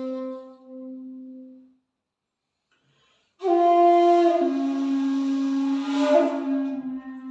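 Handmade 2.8 jinashi shakuhachi playing honkyoku: a held low note fades out, then after a silence of under two seconds a loud new phrase begins. The phrase steps down in pitch and has a breathy swell near the end.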